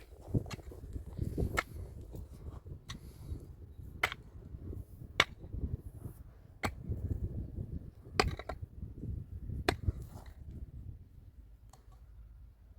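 Repeated sharp blows, one about every second and a half, like a tool chopping or striking, over a low steady rumble.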